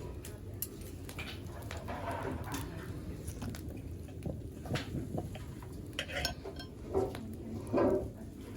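Cutlery and dishware clinking and scraping in a series of light, irregular knocks, with a few louder clinks in the second half, as food is handled with utensils.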